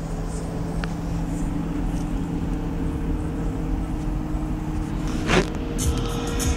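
Steady vehicle engine and road noise with a constant low hum, and a short swish about five seconds in.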